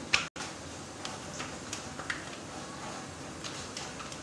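Faint kitchen handling sounds of roti being made: one sharp tap just after the start, then scattered soft taps over a steady background hiss. The audio drops out completely for an instant just after the first tap.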